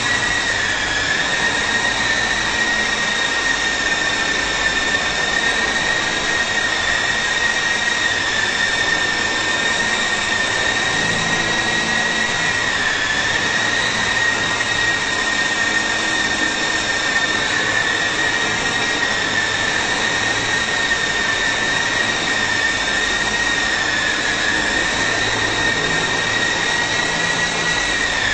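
Syma S009 toy coaxial RC helicopter in flight: its small electric motors give a steady high whine over rotor noise, the pitch dipping slightly now and then as the throttle changes.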